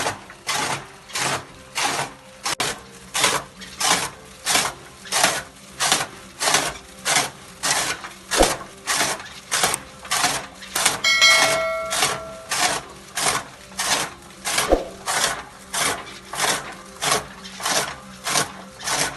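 Chaff cutter blades chopping fodder in a steady rhythm, about two chops a second, over a low steady machine hum. Just past halfway a brief ringing tone sounds.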